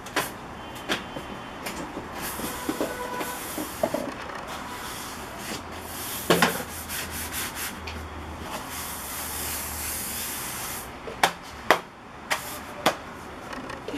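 Wide bristle brush scrubbing wet paint across a large sheet of paper, a steady rubbing, with a few sharp knocks: one about halfway through and several near the end.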